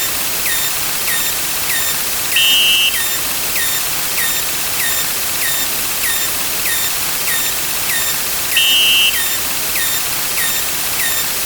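Sound-effect track of a number counter: a steady hiss under a short, falling tick about twice a second. Twice, about six seconds apart, a half-second shrill tone sounds louder than everything else.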